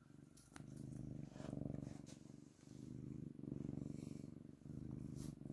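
Domestic cat purring right at the microphone: a low rumble that swells and dips about once a second with each breath in and out.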